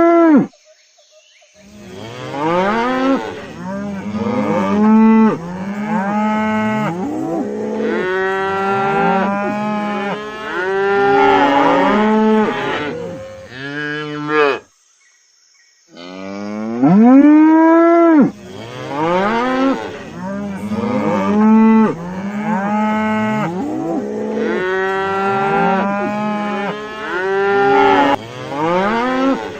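Cows mooing over and over, long drawn-out calls from several animals overlapping at different pitches, with two brief silent breaks, one about a second in and one around the middle.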